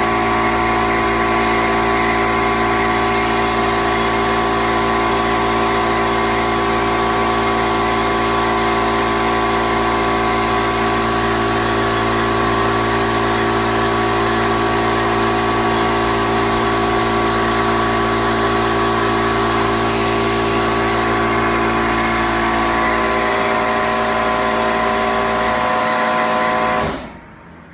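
Spray-finishing rig spraying top coat: the motor hums steadily, and a loud spray hiss starts about a second and a half in as the gun's trigger is pulled, breaks off for a moment in the middle and stops a few seconds before the end. The motor then shuts off suddenly near the end.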